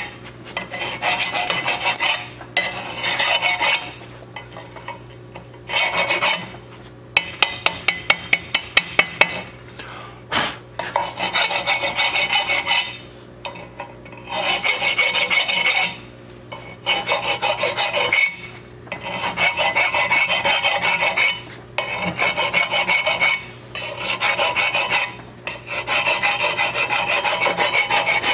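Hand tool scraping on steel pipe in repeated strokes of one to two seconds, with short pauses between them. About a quarter of the way in comes a run of sharp taps, about four a second, and a steady low hum runs underneath.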